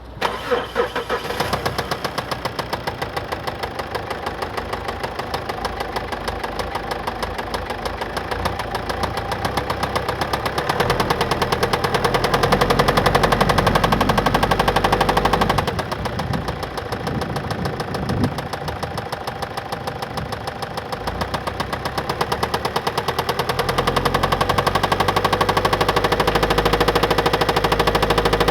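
2013 Mazda 6 2.2-litre diesel engine running with a rapid, regular knocking from failed internal bearings (Lagerschaden), serious internal engine damage. The engine gets louder in two stretches, with the knock keeping pace.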